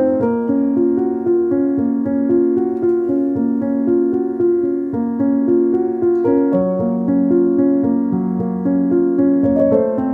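Background piano music: a steady melody of held notes over a lower bass line.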